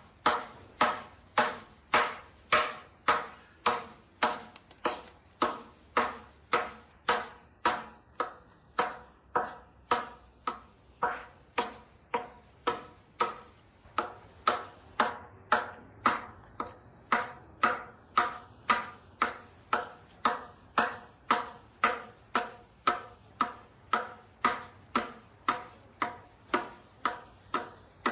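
Japanese adze chopping a notch into a wooden beam: sharp blows of the blade biting into the wood in a steady rhythm of about two a second.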